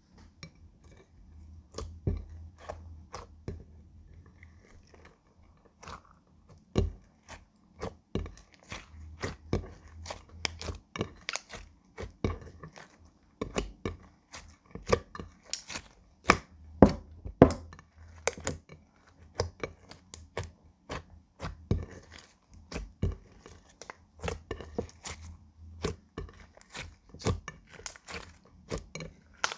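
Clear slime being kneaded and squished by hand as eyeshadow is worked in, giving irregular sharp clicks and pops. They are sparse for the first few seconds, then come several a second.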